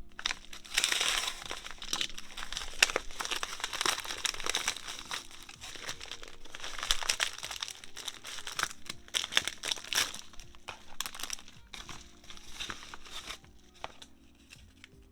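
Packaging crinkling and rustling by hand as a mail package is unwrapped, in irregular bursts with sharp crackles, dying away near the end. Soft background music plays underneath.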